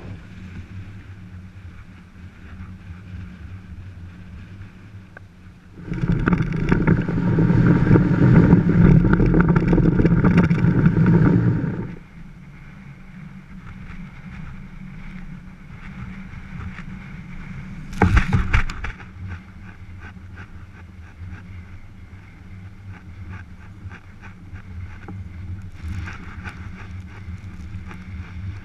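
Wind rumbling over an action camera's microphone. The rumble swells loud for about six seconds, starting about six seconds in, and there is a brief knock near eighteen seconds.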